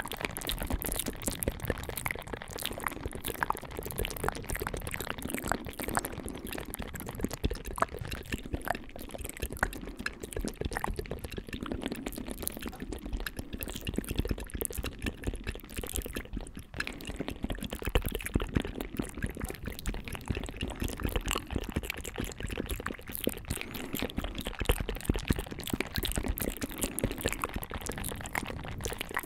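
Several layers of wet mouth sounds overlaid and recorded close to the microphone: a dense, unbroken run of small clicks and smacks.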